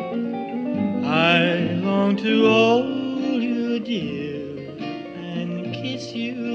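A 1950s–60s-style rock and roll recording with guitar prominent in the band. Between about one and three seconds in, a high melody line wavers with strong vibrato.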